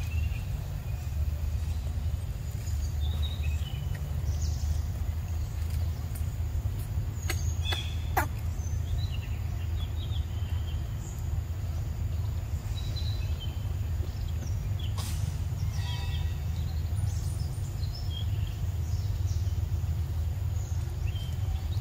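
Outdoor forest ambience: scattered short bird chirps over a steady low rumble, with a few sharp clicks about seven to eight seconds in and again around fifteen seconds.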